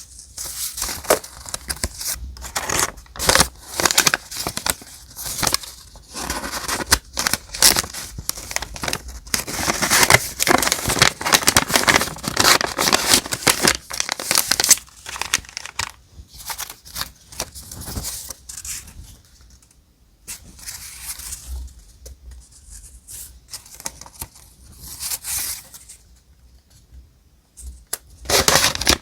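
Close-up paper sounds: sheets and die-cut paper pieces rustling, crinkling and tearing. The sound comes as a run of short sharp strokes and longer rustling stretches, with a couple of quieter pauses.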